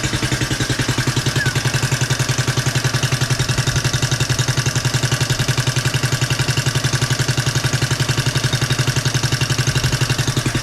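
Suzuki DR200's freshly rebuilt air-cooled single-cylinder four-stroke engine idling steadily on its first start after a top-end rebuild, with even, fast pulses. Its valve train is a bit loud, which the owner takes for valves that need readjusting.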